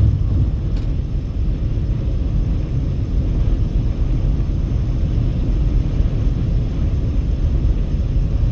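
Steady low rumble of a car travelling at highway speed: road and tyre noise with wind.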